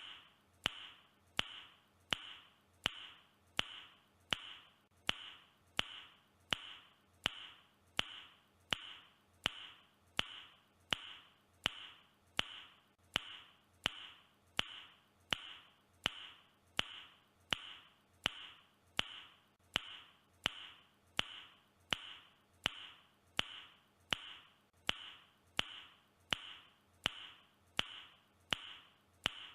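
A man's mouth click, repeated over and over at an even pace of about three clicks every two seconds, each click trailed by a short fading hiss.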